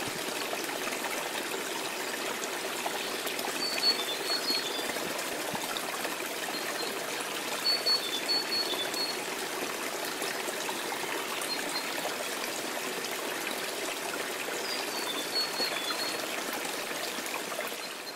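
A small waterfall trickling and splashing steadily into a pool, with a few short high chirps scattered over it. It fades out at the very end.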